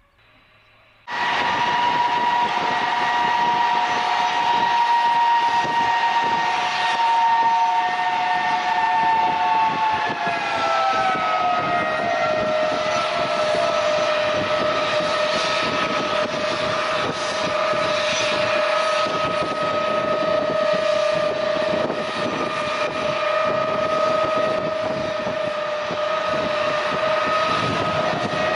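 Jet engines of a large military transport aircraft running loud, with a steady high whine over a rushing roar. About ten seconds in, the whine drops in pitch over a couple of seconds, then holds steady.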